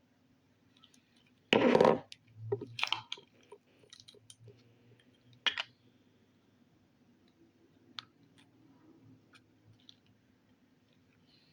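Slime or putty and its container being handled: a short loud rustle about one and a half seconds in, then scattered sticky clicks and pops.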